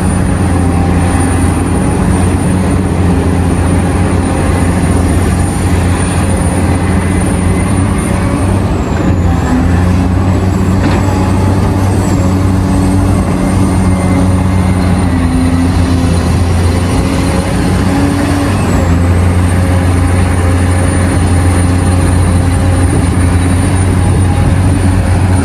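Heavy diesel machinery running steadily: a loud, constant, deep engine drone, with a faint high whine that dips and wavers in pitch now and then.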